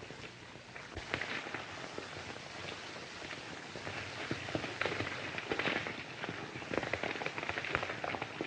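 A horse's hooves clattering irregularly on a stony trail, over the steady hiss of an old film soundtrack.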